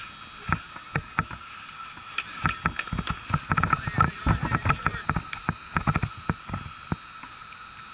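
Irregular light clicks and knocks from the catcher-worn camera rubbing and shifting on its mount as the catcher moves, over a steady high hum.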